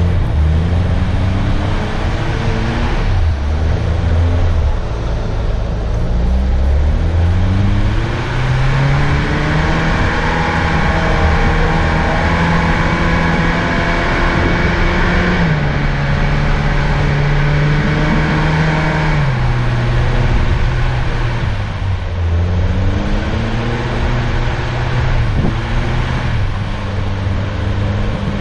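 Off-road 4x4's engine pulling the vehicle along a track, heard from inside the cabin; its pitch rises and falls with the throttle, dropping sharply twice in the middle.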